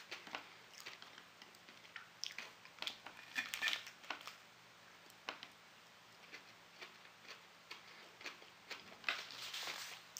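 Faint, scattered clicks and scrapes of a metal spoon against a porcelain plate as it cuts into a chocolate fondant cake, with a few louder soft rustling bursts about three and a half seconds in and again near the end.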